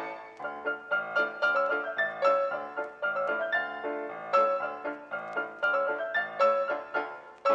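Background piano music: a steady stream of notes.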